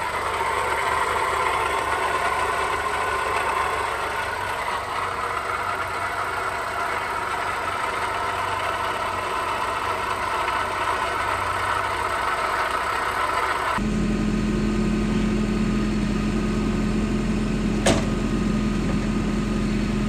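Perodua Bezza engine idling with a loud mechanical noise, which the owner likens to the engine about to break. About 14 seconds in, the sound changes abruptly to a deeper, steady hum, with a single click near the end.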